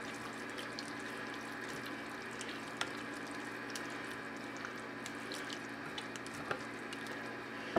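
Rubber spatula folding crab into a thick, creamy dip in a bowl: faint wet squelching and scraping over a steady low background hum, with a couple of small ticks against the bowl.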